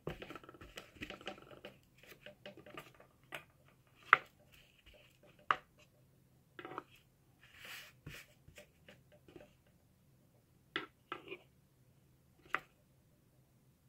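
Hands rubbing and patting felt pressed into the back of an embroidery hoop, then a string of light clicks and knocks as the hoop is picked up and handled. The sharpest knock comes about four seconds in.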